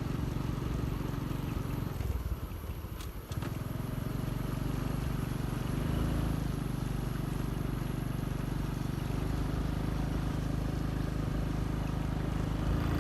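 Vehicle engine and road noise while driving uphill, a steady low rumble. About two to three seconds in it briefly drops off, with a click, then picks up again.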